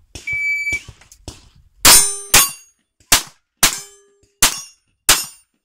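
Electronic shot-timer beep, then six pistol shots fired in quick succession over about three seconds. Steel target plates ring briefly after some of the shots, as hits.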